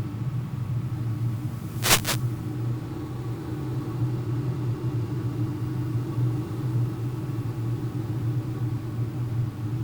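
Steady low rumble and hum of an RC glider in flight, as picked up onboard, with a brief sharp double click about two seconds in.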